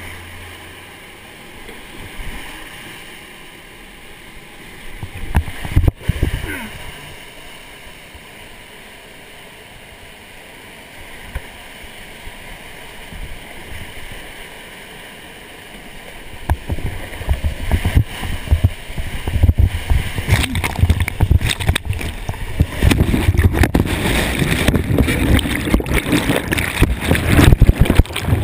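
Rushing whitewater heard close up from a whitewater canoe, steady at first. From about sixteen seconds in it turns much louder and choppier, with splashes and water striking the microphone as the boat goes through the drop.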